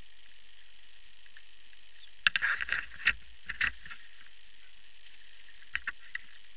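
The hatch cover of a Traxxas Spartan RC boat being lowered and pressed shut on the hull, heard close up as a quick run of clicks and knocks about two seconds in, then a couple more near the end, over a steady hiss.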